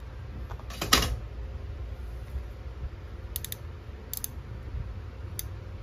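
A 3/8-inch drive click-type torque wrench being handled: one loud sharp clack about a second in, then a few light metallic clicks spaced about a second apart.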